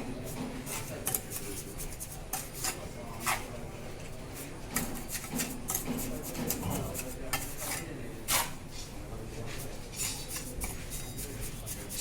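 Mason's steel trowel scraping and clinking against mortar and bricks at irregular intervals, with short metallic scrapes and taps.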